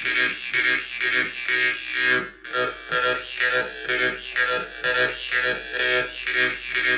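Khomus (Yakut jaw harp) being played: a droning twang with bright overtones, plucked in a steady rhythm of about two to three strokes a second, with a short break about two and a half seconds in.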